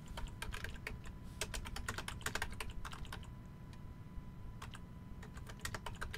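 Typing on a computer keyboard: quick, irregular runs of key clicks, with a short lull about halfway through.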